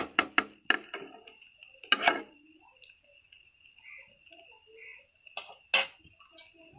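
A metal spatula clicks and taps against a karahi a few times in the first second, knocks once about two seconds in, and clicks twice sharply near the end, over a faint steady sizzle of potatoes frying in oil.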